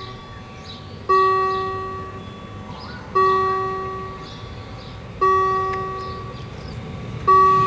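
Level-crossing warning bell striking at a steady pace, about once every two seconds, four strikes in all, each a single ringing clang that dies away: the crossing is closed for an approaching tram.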